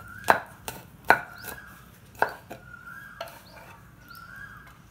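Kitchen knife chopping ginger on a wooden cutting board: about half a dozen sharp knocks in the first two and a half seconds, most followed by a brief ring. Then the chopping stops.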